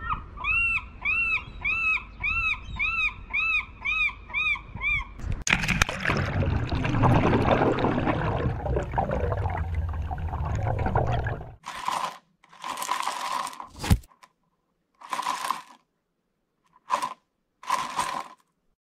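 Cartoon sound effects. A quick run of about a dozen short chirping tones comes first. A crash then opens a long rushing, rumbling noise, which gives way to several short separate bursts with silences between.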